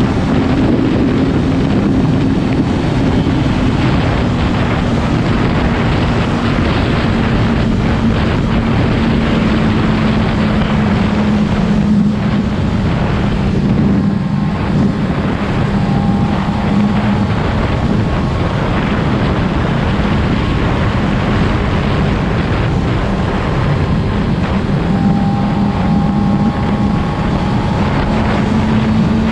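Yamaha R6's 599 cc inline-four engine running at steady revs for the whole stretch, its pitch drifting only slightly, with wind rushing over the microphone.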